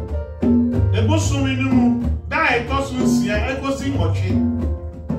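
A man singing while playing conga drums with his hands, the drum strokes sounding under his voice, over music with a repeating low part.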